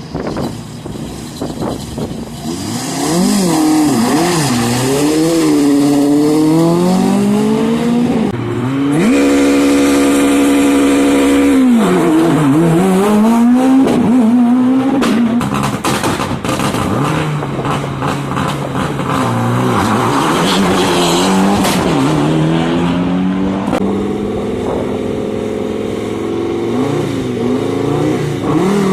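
Rally car engines revving hard and changing gear, the pitch climbing and dropping again and again, with a few seconds held at one steady high pitch. There is a run of sharp cracks in the middle, typical of exhaust crackles and backfires.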